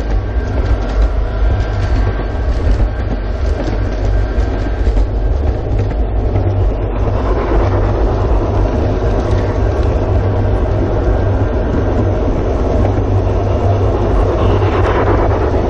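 G-scale model freight train running along the track, heard from a camera riding on one of its boxcars: a steady low rumble of wheels and running gear on the rails.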